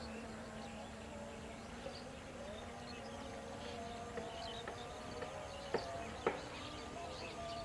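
Outdoor ambience of many faint, short high chirps from small birds and insects over a steady hum, with two sharp clicks a half second apart about six seconds in.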